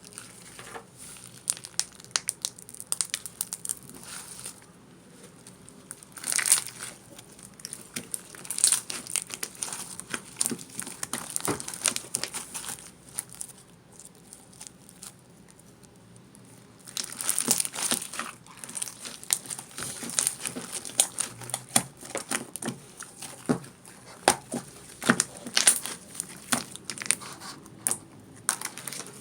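Crinkling and rustling of a crinkly material being handled, in irregular bursts of small crackles, with a quieter lull from about 13 to 17 seconds in.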